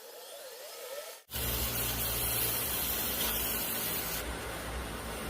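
Wood lathe running with 220-grit sandpaper hissing against the spinning mahogany knob, starting abruptly about a second in. The hiss eases a little near the end.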